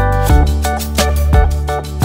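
Background music: plucked guitar over a held bass line, with regular drum hits.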